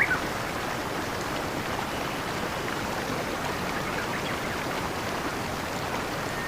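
Steady rush of flowing stream water, with a single short bird chirp right at the start.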